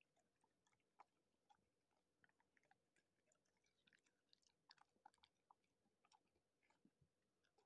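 Golden retriever chewing a strawberry: faint, irregular wet clicks and smacks of its mouth, busiest in the middle of the stretch.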